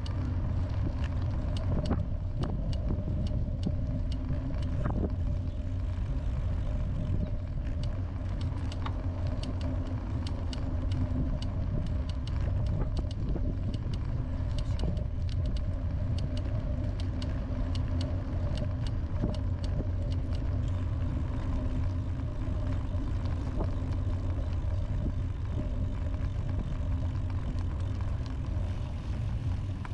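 Steady low rumble and hum of a vehicle on the move, with frequent small clicks and rattles throughout.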